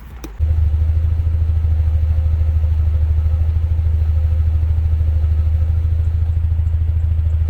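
1988 Honda Civic wagon's four-cylinder engine idling, a loud low running sound with a fast even pulse from its poor exhaust. It comes in suddenly about half a second in and holds steady.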